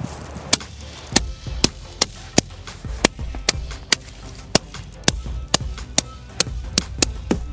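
Snappers bang snaps cracking as a rubber mallet pounds a pile of them on a wooden board: an uneven string of sharp pops, about two a second, coming a little faster near the end.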